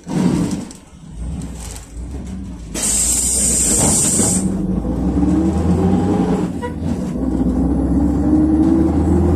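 PAZ 32054 bus with a ZMZ-5234 V8 petrol engine pulling away. A knock comes at the start, and a loud hiss of released air lasts about a second and a half. The engine then revs up with a rising note, breaks off briefly for a gear change and climbs again.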